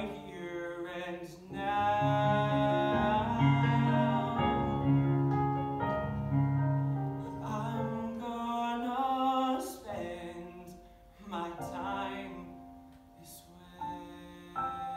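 A man singing a slow, sustained melody with piano accompaniment: full held chords under the voice in the first half, thinning to quieter single notes toward the end.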